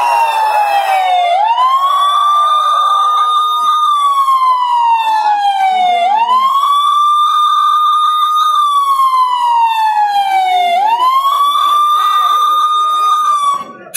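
Police-style wailing siren sound effect played loud through the stage loudspeakers as part of the dance track. A single tone holds high, slides slowly down, then sweeps quickly back up, about every four and a half seconds, and cuts off abruptly just before the end.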